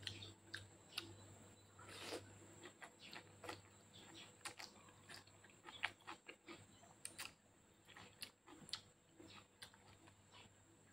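Faint close-up eating sounds: irregular wet clicks and smacks of chewing and slurping spaghetti.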